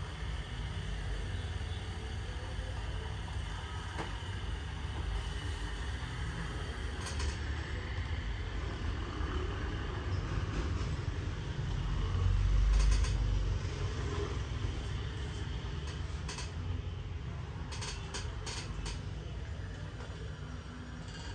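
Steady low rumble of street traffic, swelling as a louder vehicle passes about midway. A few sharp taps cut through it, several close together near the end.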